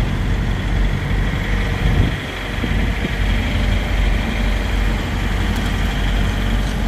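Heavy diesel engine idling steadily: a low rumble with a constant hiss above it, and one brief knock about two seconds in.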